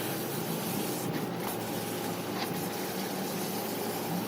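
Steady hiss over a low, constant mechanical hum with a faint steady whine, with no strikes or changes.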